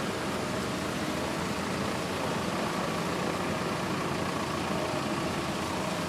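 Steady rain hiss mixed with road traffic, a motor vehicle's engine running close by.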